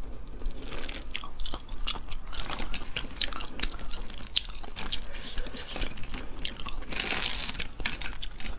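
Cooked crayfish shells cracking and crunching as they are pulled apart by hand, mixed with close chewing and biting. Many short sharp cracks run throughout, with a longer crackling stretch about seven seconds in.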